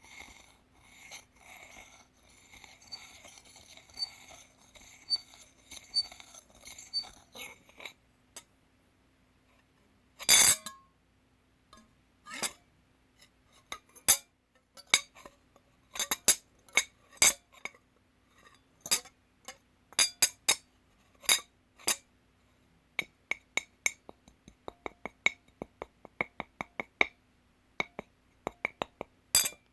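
Metal fork scraping and clinking against a dish. It scrapes and rubs with small clinks for the first several seconds, then gives many separate sharp clinks and taps, some in quick runs. One loud clink comes about ten seconds in.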